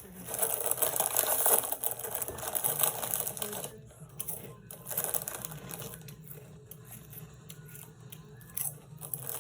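Crinkly snack packaging being torn and rustled for about four seconds, then quieter small rustles and clicks.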